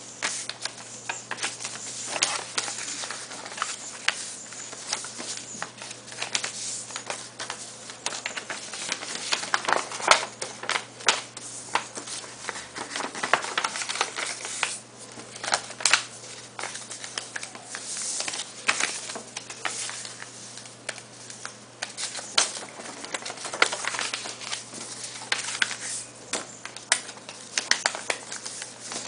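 A printed sheet of paper being folded by hand into a paper airplane: rustling and crinkling, with sharp scrapes as fingers run along and crease the folds against a desk. A steady low hum runs underneath.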